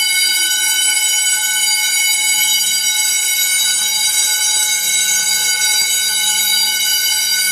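Building fire alarm ringing loudly and without a break, a shrill, ear-piercing tone: a false alarm set off by wood being sawn inside an apartment.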